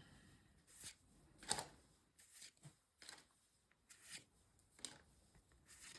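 Trading cards being flipped through by hand: faint, irregular slides and flicks of card against card, the loudest about one and a half seconds in.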